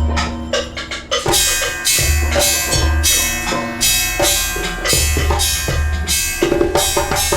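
Free-improvised percussion: drums, wood blocks and struck metal clattering densely over a heavy low pulse that swells every few seconds, with ringing metallic tones held over it. The high metal strikes thicken a little over a second in.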